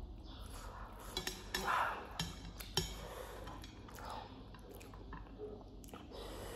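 Eating sounds: wooden chopsticks clicking and scraping against a ceramic plate while picking up spicy noodles, with a few sharp clicks in the first three seconds and chewing in between.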